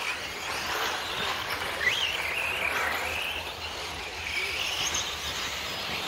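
1/8-scale electric RC buggies running, their motors and gearing giving a high whine that rises and falls in pitch with throttle, with a quick rising sweep about two seconds in.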